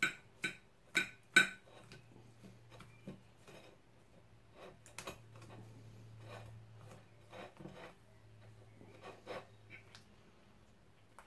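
Metal fork clinking and scraping on a ceramic plate while pulling cooked rabbit meat apart: four sharp clinks in the first second and a half, then quieter taps and scrapes, over a faint steady low hum.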